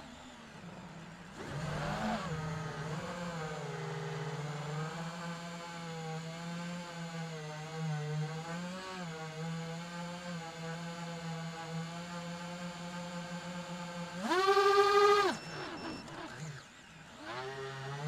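iFlight Titan DC5 FPV quadcopter's brushless motors and propellers whining under changing throttle. The pitch starts low, climbs about two seconds in and holds a steady hum that wavers slightly. About fourteen seconds in it jumps to a loud, much higher whine for about a second, drops away, then climbs again near the end.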